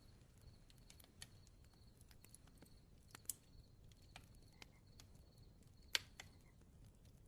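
Near silence: a faint background with a thin, steady high tone and a few soft scattered clicks, the clearest about one, three and six seconds in.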